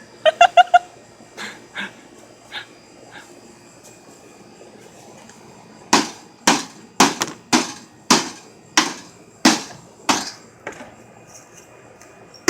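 A run of about ten sharp blows, roughly two a second, beginning about six seconds in: a broken microwave being struck again and again with a hand tool. Near the start, four quick high-pitched yips.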